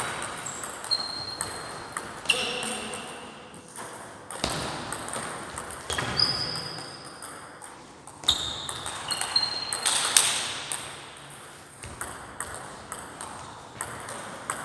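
Table tennis rallies: a plastic 40+ ball clicking off bats and tables in quick, irregular strokes in an echoing sports hall. There are a few short, high squeaks in between.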